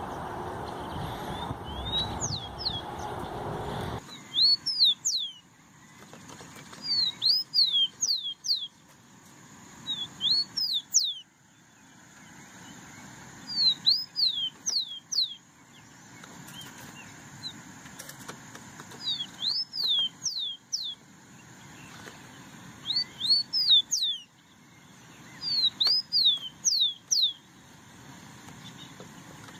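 Rufous-collared sparrow (tico-tico) singing: short phrases of three to five clear whistled notes, each sliding up and then down, repeated every three to four seconds. For the first four seconds a steady rushing noise with faint chirps runs instead, then cuts off suddenly.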